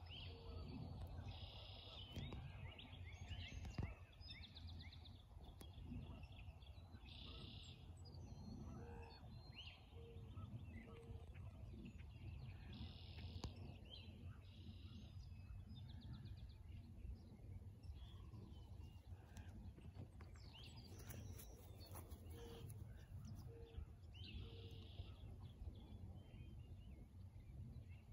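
Faint morning chorus of several songbirds: scattered chirps and repeated one-second buzzy trills, with a short low note repeated every second or so. A steady low rumble runs underneath.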